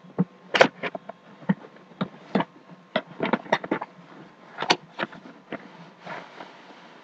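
A cardboard shipping box being opened by hand: an irregular run of sharp cracks, scrapes and rustles of cardboard and packing material.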